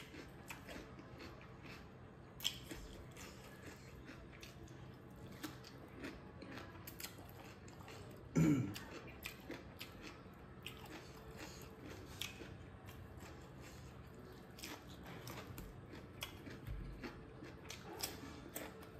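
Close-miked eating sounds: chewing and crunching of rice, bamboo shoots and cucumber eaten by hand, with many small wet mouth clicks. One louder sound stands out about eight and a half seconds in.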